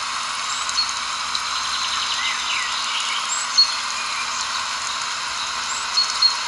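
Outdoor nature ambience: a steady, dense chorus hiss of calling animals, with short high chirps standing out about every two to three seconds and a few brief sliding calls near the middle.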